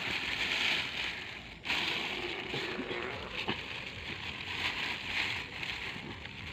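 Thin plastic bag rustling and crinkling as a hand moves around inside it handling a caught fish, with a brief break about a second and a half in.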